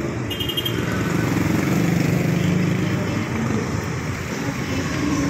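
Street traffic with a vehicle engine running close by, swelling to its loudest about two seconds in and then easing off.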